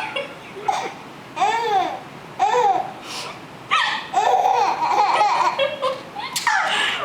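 A baby laughing and vocalising in several short high-pitched bursts, the pitch rising and falling in each, with a longer run of laughter after the middle.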